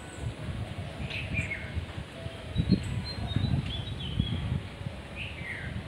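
Several short, high bird chirps, each falling slightly in pitch, scattered over an uneven low rumble.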